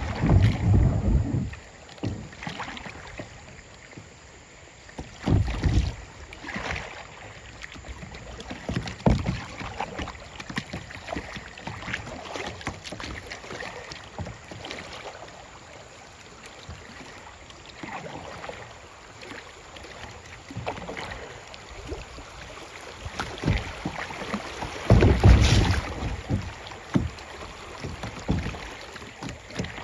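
Kayak paddling on a river: irregular paddle strokes splashing in the water. Louder low rumbling bumps come at the start, about five seconds in and about 25 seconds in.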